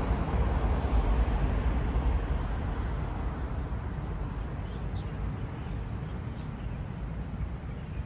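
Road traffic rumble from a passing vehicle, fading away over several seconds.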